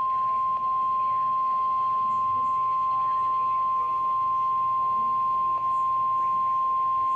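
NOAA Weather Radio 1050 Hz warning alarm tone: one steady, unbroken high tone at an even level, the signal that a warning broadcast follows.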